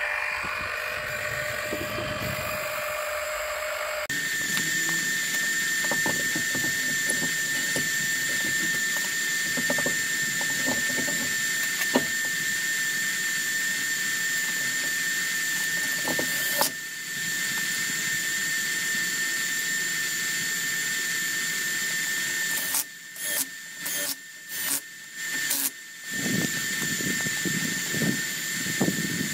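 Cordless power tool running with a steady high whine, then started and stopped in several short bursts near the end.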